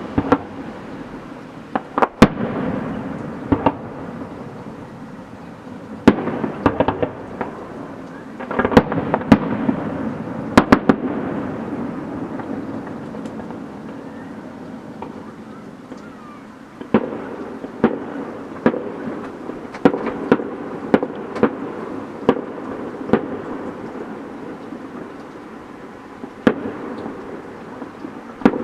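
Fireworks display: many sharp bangs of bursting shells, in quick clusters early on and then a steady string of single bursts about once a second from partway through, over a continuous rumble and crackle.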